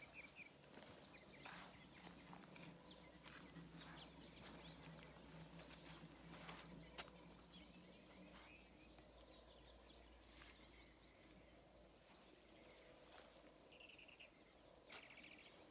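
Near silence: faint outdoor ambience with scattered short bird chirps and a few light clicks.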